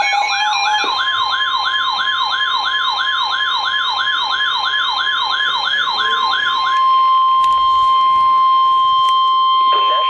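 Weather radios sounding their alert alarms for a flash flood warning. A warbling siren alarm sweeps up and down about three times a second and stops about seven seconds in. Under it, NOAA Weather Radio's steady single-pitch warning alarm tone carries on, and a beeping alarm cuts out about a second in.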